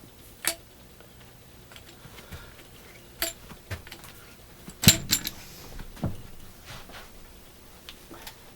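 Scattered sharp clicks and knocks of small hard objects being handled, four louder ones, the loudest about five seconds in.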